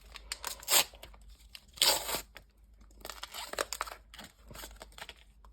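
A pack of Team Coach trading cards being torn open: two short rips of the wrapper, about one and two seconds in, then the wrapper crinkling.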